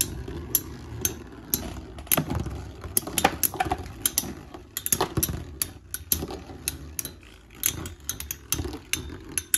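Three Metal Fight Beyblades spinning in a clear plastic stadium: a steady whirr runs under many sharp, irregular clicks as their metal wheels collide.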